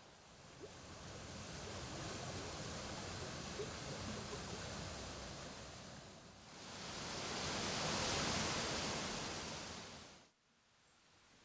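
Rushing water of a rocky mountain river with small cascades, a steady hiss that swells and fades, loudest about eight seconds in, then drops away sharply near the end.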